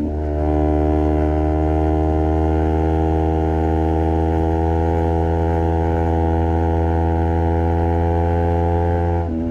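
Honda CBR250RR parallel-twin engine with a Project 79 slip-on exhaust pulling steadily under way. The note holds almost level, with a brief dip in pitch at the start and again near the end, as gears change.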